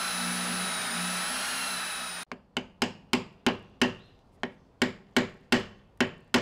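Corded drill running steadily, boring a 1-inch Forstner bit into the end grain of a mesquite log, cut off abruptly about two seconds in. It is followed by about a dozen sharp hammer blows, roughly three a second, each with a short ring, tapping a steel lathe spur drive into the drilled hole to seat it.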